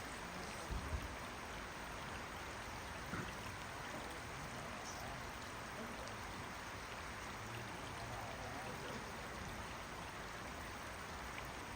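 Steady rain falling, an even patter of raindrops, with a couple of soft low knocks about a second in and at about three seconds.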